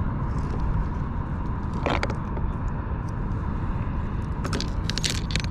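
Steady low rumble of wind buffeting the microphone on open water, with a single sharp click about two seconds in and a few more clicks near the end.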